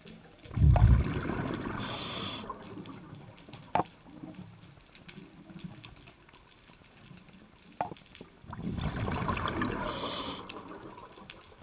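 Scuba diver breathing through a regulator underwater: two rushes of exhaled bubbles, one just after the start and one near the end, with a few sharp clicks between them.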